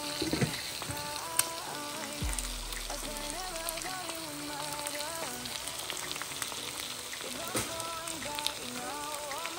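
Music with a melody over a steady crackling hiss.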